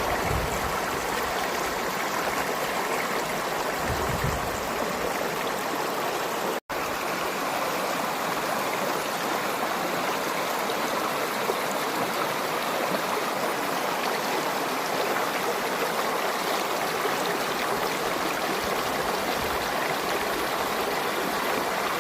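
Water of a stream flowing steadily, a continuous even rush. The sound cuts out for an instant about seven seconds in, then carries on unchanged.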